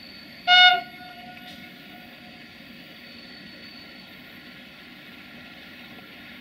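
A single short blast of a locomotive horn about half a second in, over a steady hum.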